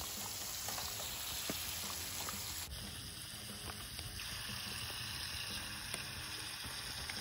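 Water draining in a steady stream out of a pontoon's rear drain-plug hole and splashing onto the dirt below, a continuous hiss. The pontoon has filled with water that leaked in through small holes in it.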